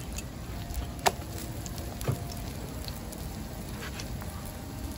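A few sharp metal clicks and knocks of tongs and hotteok presses against a griddle, the loudest about a second in, over steady low background noise.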